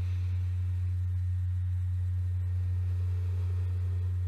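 A steady low-pitched hum: one deep, unchanging tone with a faint higher overtone.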